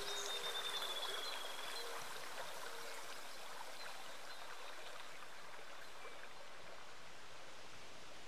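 Steady rushing noise like a flowing stream, easing slightly in level. The tail of the flute music fades out in the first moments.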